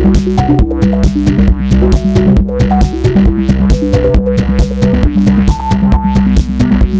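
Korg Volca synthesizer playing an electronic pattern: a steady drum-machine beat with a held bass line and a melody of short stepping synth notes.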